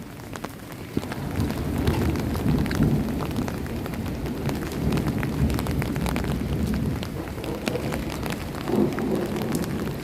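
Rain pouring down, with many sharp drop hits over a low rumble; it grows louder about a second in.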